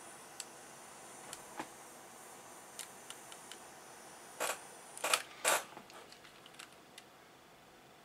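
Faint steady hiss of a small gas blowtorch flame heating a copper cable lug during soldering, with scattered light clicks and a few louder clacks of handling between about four and a half and five and a half seconds in.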